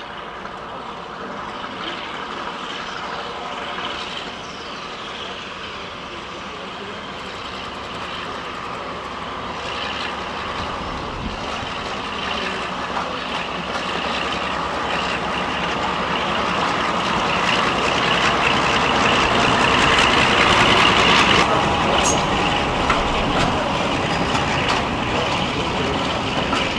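Class 52 'Western' diesel-hydraulic locomotive, with its twin Maybach V12 diesel engines running, drawing a passenger train slowly in. The engine noise builds steadily as it approaches, peaks about three-quarters of the way through, then eases a little.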